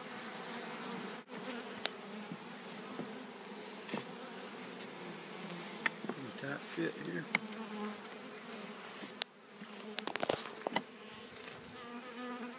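A swarm of honeybees, just shaken from a package into a top bar hive, buzzing steadily as many fly about. Several sharp clicks break in, with a quick cluster of knocks about ten seconds in.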